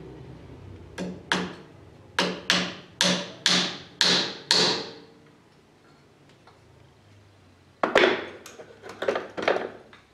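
Hammer blows on wood, a steady run of about eight strikes at roughly two a second, each with a short ring, typical of driving a nail into a wooden frame. A few more quicker, irregular knocks follow near the end.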